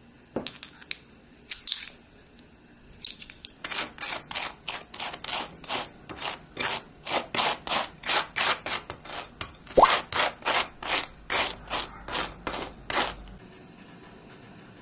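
A few clinks of a utensil against a glass jar, then a butter knife scraping soft butter across crisp toast in a long run of even strokes, about three a second, that stops about a second before the end.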